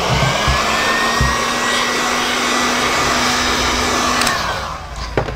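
Electric heat gun switched on, its fan spinning up with a rising whine into a steady blowing hiss, then shut off about four seconds in and winding down, followed by a click. It is heating the engine's crankcase so a crankshaft bearing can be pressed into its seat.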